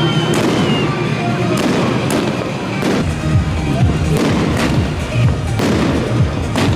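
New Year fireworks going off in a series of sharp bangs, roughly one a second, over a continuous low rumble.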